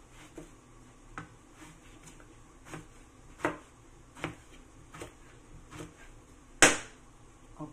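Chef's knife slicing a long Filipino eggplant into rounds on a plastic cutting board, the blade knocking the board with each cut. There are about ten chops at an uneven pace of roughly one a second, and the loudest comes near the end.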